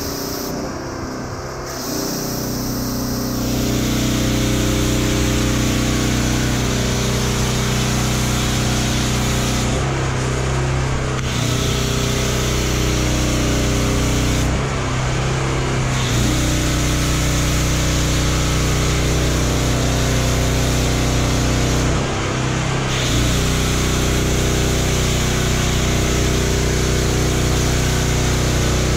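A pressure washer runs with a steady hum while a foam cannon on its spray gun puts out a loud hiss of foam. The hiss starts about two seconds in and stops briefly three times.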